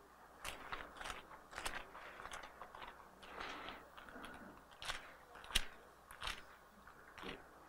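Bible pages being turned while a passage is looked up: a string of faint, irregular rustles and soft crinkles.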